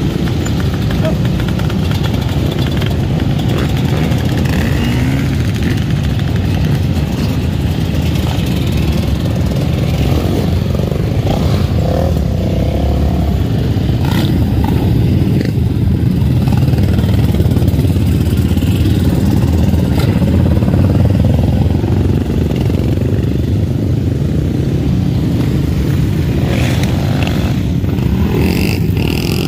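Engines of a column of enduro dirt bikes and quad bikes riding slowly past at low revs, blending into one steady drone, with a few short revs from individual machines.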